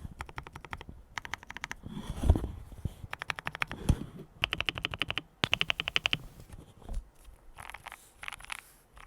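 Typing on a KBD67 Lite R3 mechanical keyboard with Gateron Brown tactile switches lubed with Krytox 205/105, a damped case with foam, and Olivia keycaps. Fast runs of keystrokes come in bursts with short pauses between them, and a few deeper single thumps fall between the runs.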